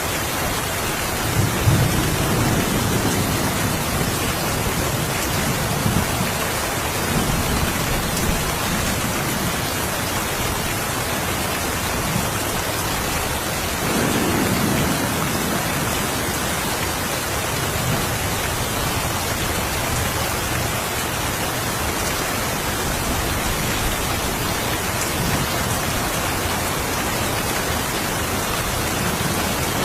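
Steady rain with low rolls of thunder, the strongest about two seconds in and another near the middle.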